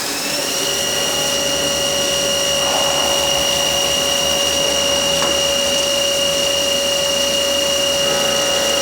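Spindle motor of a Prussiani Silver 2500 CNC working center finishing its spin-up, its pitch rising for about half a second, then running at speed with a steady high whine.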